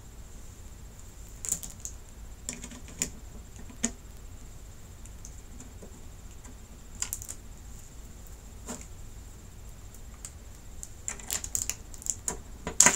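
Scattered light clicks and knocks of a TV power-supply board being set into the metal back of the set and its cable connector pushed in, growing busier and louder near the end.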